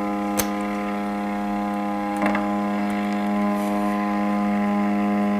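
A Digital TS-60 amplifier is giving out a steady mains hum through its speaker, with a couple of faint clicks. The hum is the fault being traced. It stays the same with the USB and antenna wires unplugged, so the fault is not in them.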